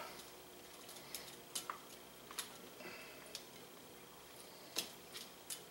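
Faint, scattered clicks and light scrapes of metal kitchen tongs against a bowl as sauced chicken wings are picked out of the sauce.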